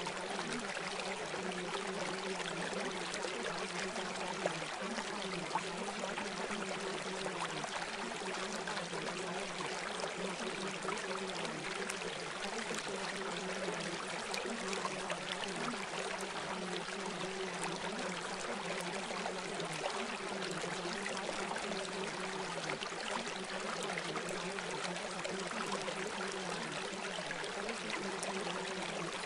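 Steady running-water sound like a stream, used as a continuous masking track for a subliminal audio, with a low, slightly wavering hum underneath.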